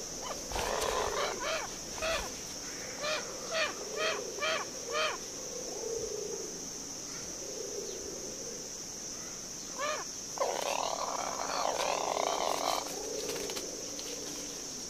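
Steady high insect drone in the forest, with a run of short repeated bird calls, about two a second, in the first five seconds. Just after the ten-second mark comes a harsh, rasping call lasting about two seconds.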